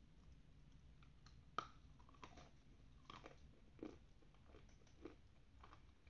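Faint mouth sounds of chewing a dry, dusty chalk-like piece: about five soft crunches, irregularly spaced, the sharpest about one and a half seconds in.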